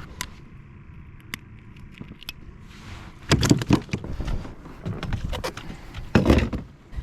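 Handling noises aboard a kayak as a just-caught fish is dealt with: a few light clicks, then three spells of rattling, scraping and knocking, the loudest near the end.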